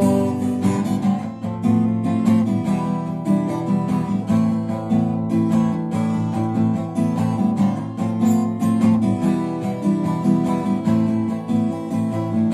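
Song music: acoustic guitar strummed in a steady rhythm during an instrumental break, with no singing.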